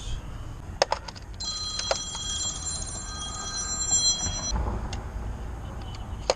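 An electronic ringing tone lasting about three seconds, a stack of high, warbling beeps that starts about a second and a half in and cuts off suddenly. A couple of sharp clicks come just before it, and another comes near the end.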